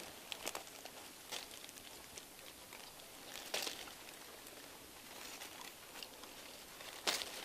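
Faint rustling of leaves and stems with a few short crackles as a hand pushes through low undergrowth to pick a berry cluster. The sharpest crackle comes near the end.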